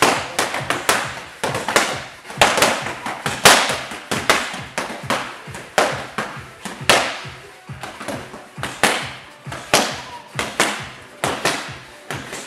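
Boxing gloves striking focus mitts: a fast, irregular string of sharp slaps and smacks from several pairs at once, echoing off the hall.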